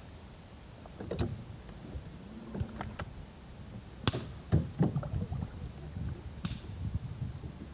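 A small rowboat's hull and wooden oars knocking and creaking in their oarlocks as the angler shifts his weight while playing a heavy hooked fish. Irregular knocks and thuds, the loudest cluster about four to five seconds in.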